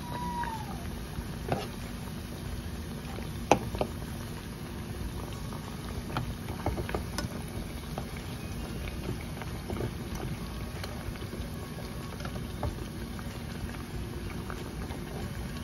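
Plantain slices deep-frying in hot oil with brown sugar, a steady sizzle and bubbling, with sharp clicks of a metal spoon against the pot as the pieces are turned; the loudest click comes about three and a half seconds in.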